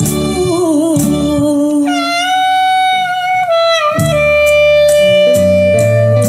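A Thai song playing back through Pioneer S-C4-S bookshelf speakers, in an instrumental passage without lyrics. A melodic lead line holds long notes and slides between them over bass and drums. The bass and drums drop out for about two seconds in the middle, then come back in.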